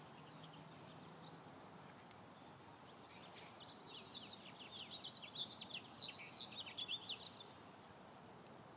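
A songbird sings a long run of quick, high chirps, starting about three seconds in and stopping about a second before the end, over faint outdoor background noise.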